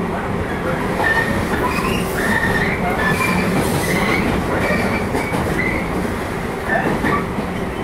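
JR 115 series electric multiple unit running along the line: a steady rumble of wheels on rail and running gear, with many brief high-pitched wheel squeaks scattered through.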